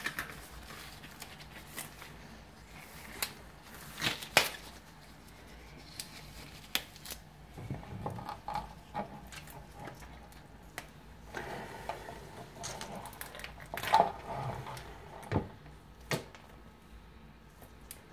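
Cooked lobster being broken apart by hand: scattered cracks, clicks and crunches of shell as the claws and legs are twisted off, the sharpest cracks a few seconds in and again in the second half.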